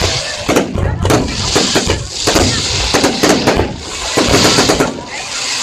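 Aerial fireworks going off in rapid clusters of bangs and crackles, a new volley about every second.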